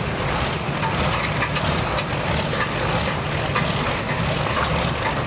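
Hot farm class pulling tractor's diesel engine running steadily while the tractor sits stopped at the end of its pull, still hooked to the sled.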